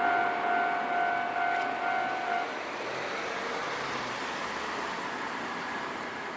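Japanese railway level-crossing warning bell ringing in a repeating electronic ding, which cuts off about two and a half seconds in as the crossing clears; a steady hiss of traffic and ambient noise carries on after it.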